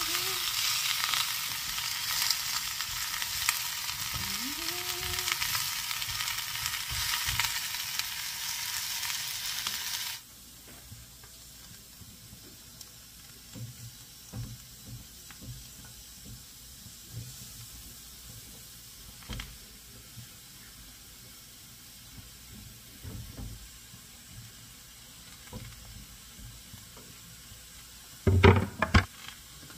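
Cabbage and Brussels sprouts sizzling in a hot frying pan as a spatula turns them for a hard sear; the sizzle cuts off suddenly about ten seconds in. After that only faint knocks, with a brief loud clatter near the end.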